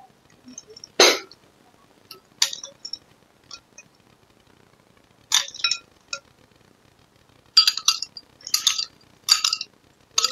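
Metal spoon clinking against glass bowls while scooping a soft, jelly-like dessert. There are a few separate clinks, the loudest about a second in, then three closer together near the end.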